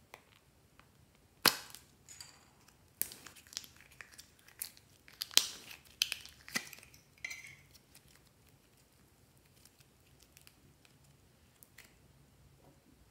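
Thin plastic clay tubs crackling and clicking as hands work soft modelling clay out of them and handle it over a glass bowl. A run of sharp clicks and crinkles starts about a second and a half in and lasts until past halfway, then only faint handling ticks remain.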